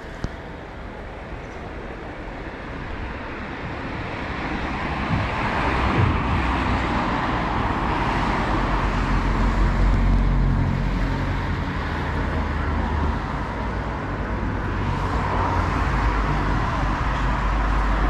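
Road traffic: cars going by on an adjacent street, a steady noise that grows louder over the first five or six seconds and then holds.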